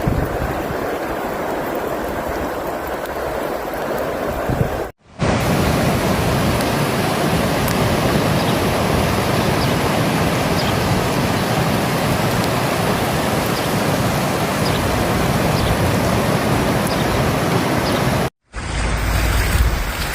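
Floodwater rushing in a steady loud roar of water noise, in three separate clips broken by short silent cuts about five seconds in and near the end.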